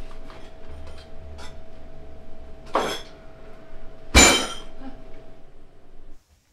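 Cups, glasses and dishes being handled behind a café counter while coffee is made: small clinks, then two louder knocks about a second and a half apart, the second the loudest, over a faint steady hum. The sound cuts off suddenly near the end.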